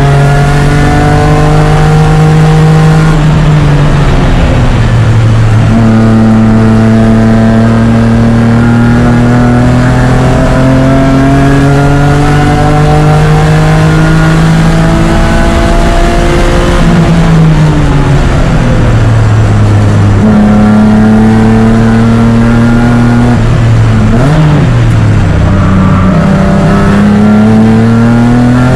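BMW E36 race car engine heard from the cockpit, pulling hard with its pitch climbing slowly through long stretches in gear. Its pitch drops sharply near the start, falls as the car brakes about two-thirds of the way through, with a quick blip on the downshift, then climbs again as it accelerates toward the end.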